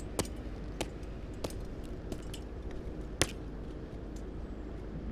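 Sharp clicks, one every half second to a second and unevenly spaced, over a steady low background rumble.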